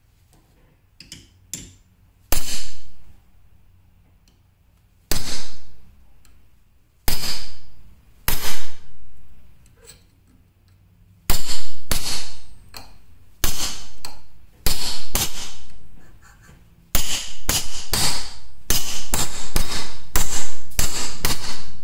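Hammer striking the spine of an AEB-L steel knife blade to drive its edge through a 10 penny nail set in a wood block, a chop test of the edge's toughness. Sharp metallic blows with a short ring, a few seconds apart at first, then quickly one after another over the last five seconds.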